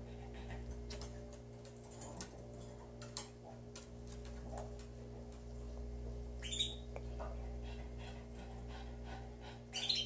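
Caged domestic canaries giving sparse, short chirps, with two louder calls about six and a half seconds in and just before the end, over a steady low hum.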